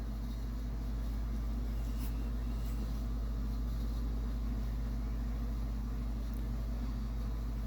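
Steady low background hum, with a couple of faint clicks.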